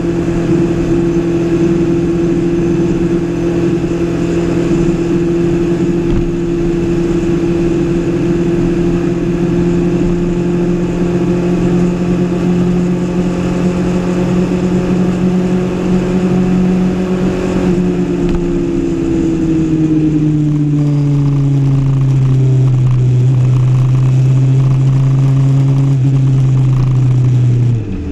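Kawasaki ZX-6R 636 inline-four engine cruising at steady revs, with wind and road noise. After about eighteen seconds the engine note falls over a few seconds as the throttle is rolled off, then holds at lower revs, with a short break in the sound near the end.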